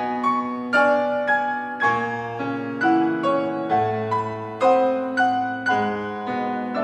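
Solo piano playing a slow piece, a new note struck about every half second over held lower notes.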